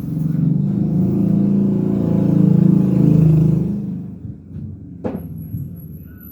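An engine or motor runs steadily with a low rumble and fades out about four seconds in. A brief sharp sound follows about a second later.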